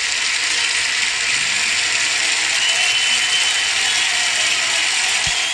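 Studio audience applauding steadily after the song, cutting off suddenly near the end.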